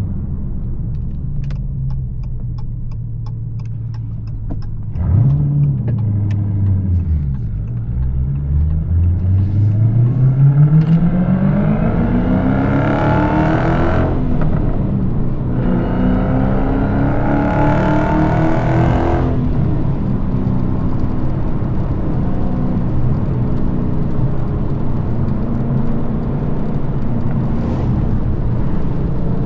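Supercharged 6.2-litre Hemi V8 of a manual Dodge Challenger SRT Hellcat with its active exhaust deleted, coasting off throttle with faint crackles. Around five seconds in there is a quick throttle blip, then two long pulls rising in pitch with a gear change between them about halfway through. It then lifts off and cruises steadily for the last ten seconds.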